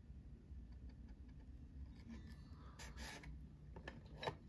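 Faint handling of a clear plastic blister pack: a brief rustling rub about three seconds in and a sharp plastic click near the end, over a low room hum.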